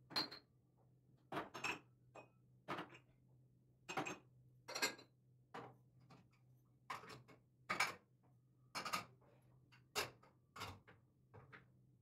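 Dishes and bowls clinking as they are set down and stacked on cabinet shelves and the counter: a string of separate sharp clinks, about one every half second to a second, over a faint steady low hum.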